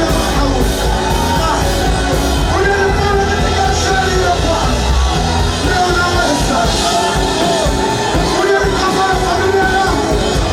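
Live church worship music: voices singing a melody over an amplified band with strong bass and a steady drum beat.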